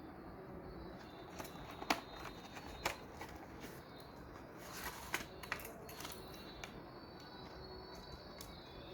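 Small objects being handled: scattered light clicks and taps, a few sharper ones, over a steady faint hiss.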